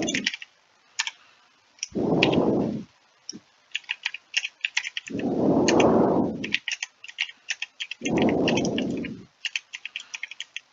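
Typing on a computer keyboard: quick, irregular clusters of key clicks. Three low rushes of noise, each about a second long and louder than the keys, come about two, five and eight seconds in.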